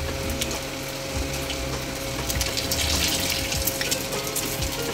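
Malpua (flattened-rice batter balls) deep-frying in hot refined oil in a steel pan, a dense sizzling crackle that is loudest about three seconds in. Scattered clicks come from a slotted spoon working in the pan, over a steady low hum.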